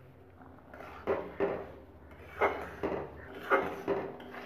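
Spatula scraping and stirring through simmering gravy in a metal wok, mixing in freshly added cornflour slurry. The strokes are irregular, roughly one every half second to a second, starting about a second in, over a low steady hum.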